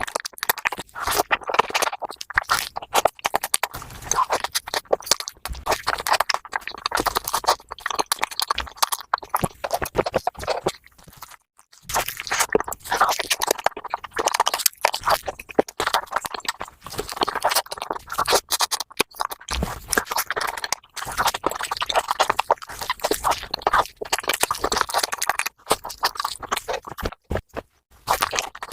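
Close-miked eating of Japanese fruit sandwiches, biting and chewing soft bread, cream and fruit, sped up about fivefold into a dense stream of wet clicks and crunches. There is a short break about eleven seconds in.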